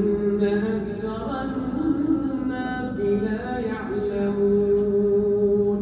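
A man's voice chanting the Quran in melodic tajweed style: long, ornamented notes that slide and step between pitches, with one long held note in the second half that stops at the very end.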